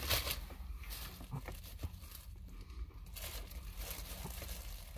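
Plastic food packaging crinkling as it is handled, with small crunches from chewing a crispy walnut cookie. It is loudest at the start, then quieter.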